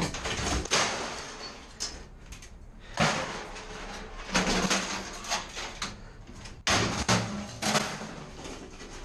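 Ferrous scrap metal (rods, tubing and sheet) being pulled from a truck's load and thrown off onto a scrap pile: a string of sudden metal clattering crashes and scrapes, several seconds apart.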